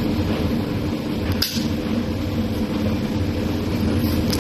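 Steady machine hum with a low rushing noise, like a running fan or appliance, with a light click about a second and a half in and another near the end.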